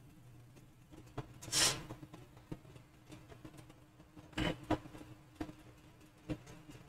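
A few faint, scattered mouse clicks over a low steady hum, with one soft breath-like hiss about a second and a half in.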